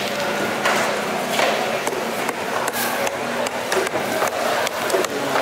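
Irregular sharp knocks of a knife on a wooden chopping block as fish is cut, over a steady background din.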